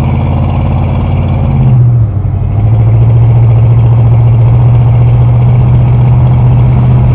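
1972 Buick Riviera's 7.5-litre V8 running with a steady, loud exhaust note. About two seconds in, the note dips briefly and shifts in pitch, then holds steady again.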